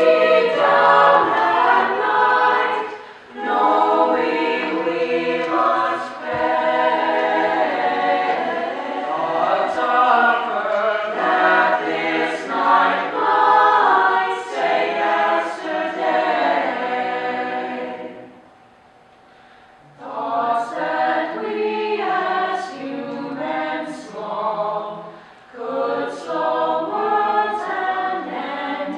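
Mixed-voice choir singing unaccompanied in close harmony, with crisp sung consonants. The voices break off about two-thirds through for about a second and a half, then come back in together.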